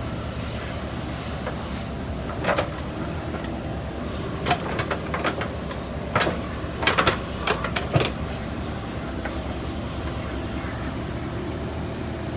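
JCB backhoe loader's diesel engine running steadily under load, with a run of sharp metallic clanks and knocks from about two to eight seconds in as the bucket and arm work.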